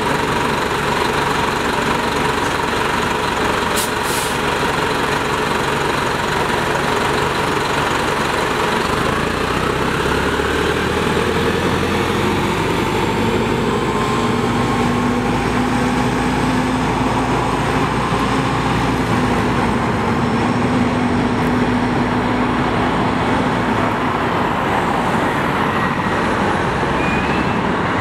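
NovaBus RTS transit bus with a Detroit Diesel Series 50 diesel idling, then pulling away about nine seconds in, with a rising whine as it moves off.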